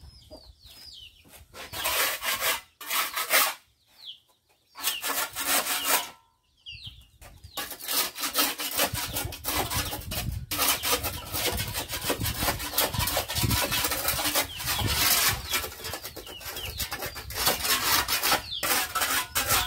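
Hand scrubbing brush scrubbing stuck-on chicken droppings in rapid back-and-forth strokes. The strokes come in short spells with gaps for the first several seconds, then run on almost without a break. A chicken clucks faintly.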